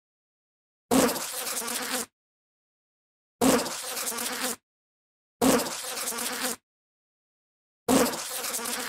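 Bee buzzing in four separate bursts of about a second each, each starting louder and then holding steady, with dead silence between them: one short sound-effect clip played over and over.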